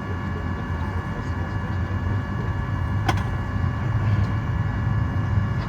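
Cabin noise of a Boeing 737-800 on the ground: a steady low rumble with a few steady whining tones over it, and a single sharp click about three seconds in.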